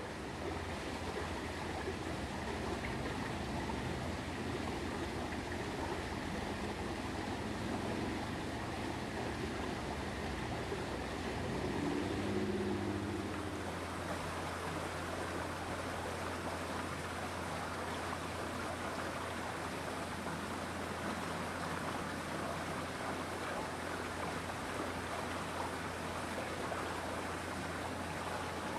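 Steady rushing outdoor background noise with a constant low hum beneath it, swelling slightly for a moment about twelve seconds in.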